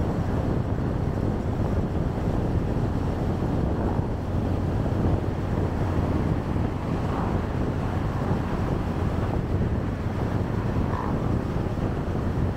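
Wind rushing over the microphone of a moving motorcycle, a steady low rumble mixed with the bike and road noise, with no breaks.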